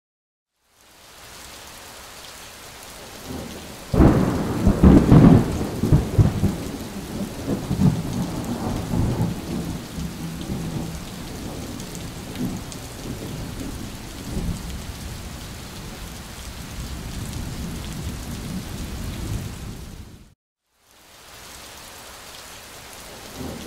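Heavy thunderstorm: steady rain with a loud clap of thunder about four seconds in that rumbles on and fades over the next several seconds. The sound cuts out briefly near the end, then steady rain resumes.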